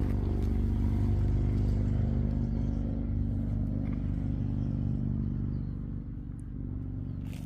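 Vehicle engine running steadily with an even low drone, easing off slightly about six seconds in.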